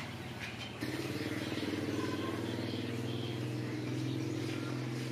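An engine running steadily at an even pitch, setting in about a second in with a constant low hum.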